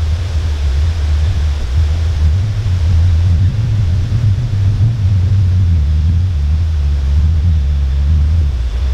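Wind buffeting the camera microphone: a loud, steady low rumble with no other clear sound above it.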